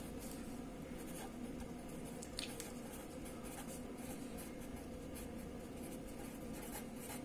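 Pen writing on paper, faint scratching strokes with small irregular ticks as a line of handwriting is written out, over a steady low hum.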